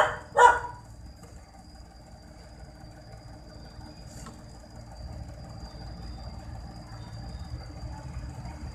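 A dog barks twice in quick succession, then a steady low background rumble continues with a faint, thin high whine.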